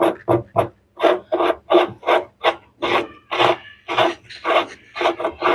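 Rasping strokes of a hand tool worked back and forth over a part, nearly four strokes a second in an even rhythm.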